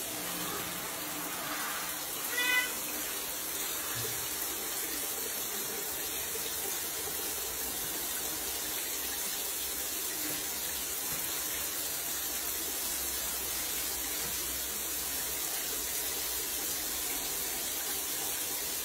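Shower water spraying steadily onto a tiled shower floor and a cat standing under it, with one short meow from the Bengal cat about two and a half seconds in.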